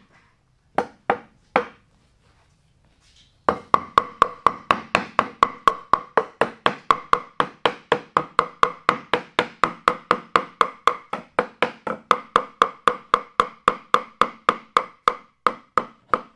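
Background music: a steady wood-block beat of about three knocks a second, starting after a few scattered knocks and a brief pause.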